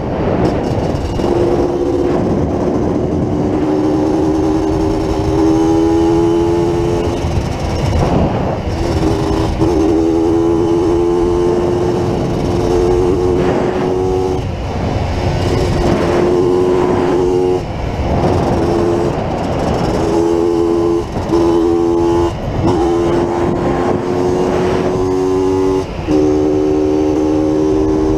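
Yamaha DT 180's two-stroke single-cylinder engine running under way with a steady buzzing tone that cuts out briefly every few seconds and comes straight back, over a low rumble.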